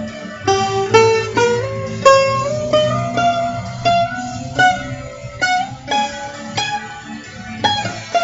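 Guitar playing an improvised melody of picked single notes, each ringing out and fading, over a steady low backing.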